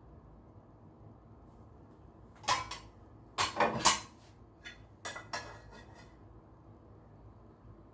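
Cooking utensils clattering and clinking against a pot of rice in a few short bursts.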